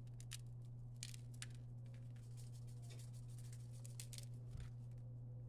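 Faint, scattered clicks and light taps of hands handling food and kitchenware, over a steady low hum.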